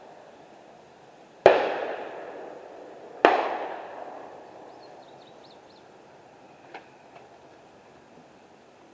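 Two rifle shots about two seconds apart, each a sharp crack followed by a long echoing decay. A couple of faint clicks come a few seconds later.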